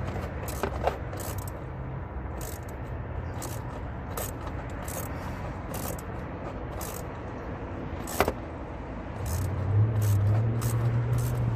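A car's engine running at low revs nearby, getting louder for the last couple of seconds as the car pulls up close. A sharp click about eight seconds in.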